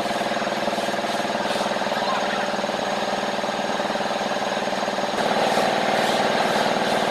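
Machinery running with a steady, fast-pulsing hum that gets louder a little past five seconds in.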